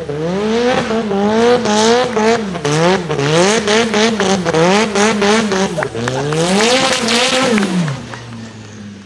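Turbocharged Nissan SR20 four-cylinder in a drift-built Mazda RX-7 FD3S, with an external wastegate screamer pipe, revving up and down about once a second while the car slides, with tyres squealing. Near the end the revs fall and the sound fades away.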